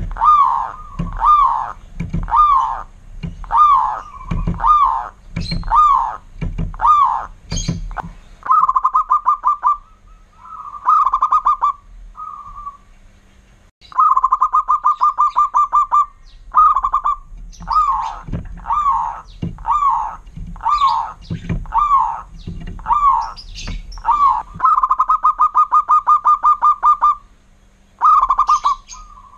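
Zebra dove (perkutut) cooing loudly: short arched coos repeated about once a second, broken several times by fast rolled trills on the same pitch.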